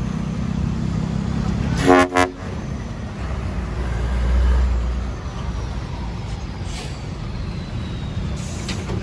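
A vehicle horn gives two quick toots on one steady pitch, about two seconds in, over a steady low rumble of vehicles on the road.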